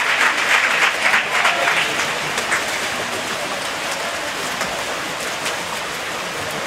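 Spectators applauding, the clapping dying away about two seconds in and leaving a steady wash of background noise.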